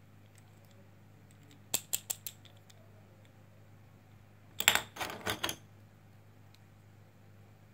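Hard plastic magnetic building sticks and ball pieces clicking against each other as they are handled: a quick run of four clicks, then, a little past the middle, a louder clatter of several clicks.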